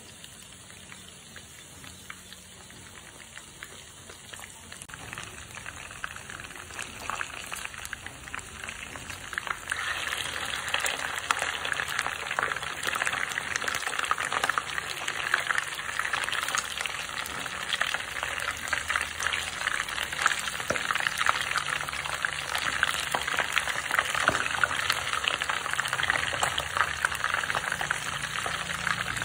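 Catfish frying in hot oil in a pan, the oil sizzling with a dense crackle. It starts faint and grows louder over the first ten seconds or so, then holds steady.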